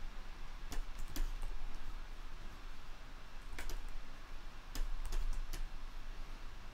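Scattered sharp clicks of computer keys and buttons being pressed, some in quick pairs and triples, over a steady low hum.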